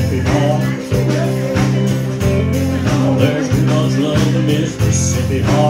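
Live country band playing: fiddle and acoustic guitar over a steady bass line and drums keeping a regular beat.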